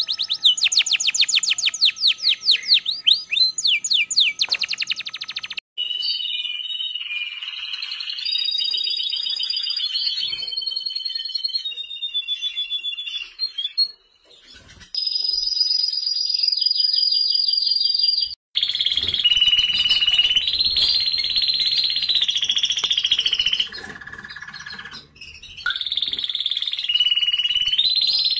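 Male domestic canaries singing: fast trills of quickly repeated sweeping notes, then long high rolls and whistled tours that change pitch in steps. The song changes abruptly several times, passing from one bird to another.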